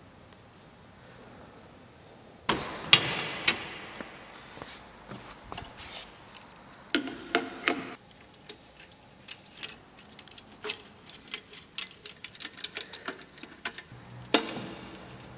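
Irregular mechanical clicks, taps and clatter from hands working at a Bell & Howell film projector. The clicks follow a couple of seconds of quiet room tone and come thicker about a second before the end.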